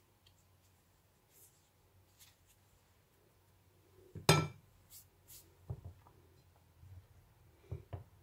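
A hard kitchen utensil clinks once against glass about four seconds in, ringing briefly, as the spatula is put aside while mixing flour in a glass bowl. A few softer knocks follow, one a little later and two near the end.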